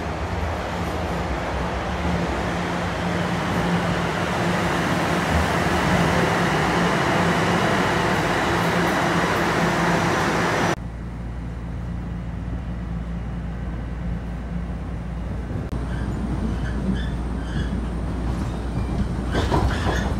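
A metro train pulls into the station and rushes past close by, its rumble and wheel noise growing louder as the cars go past. About eleven seconds in, the sound cuts abruptly to the steadier, lower rumble heard inside a car of the moving train, with a few light clicks near the end.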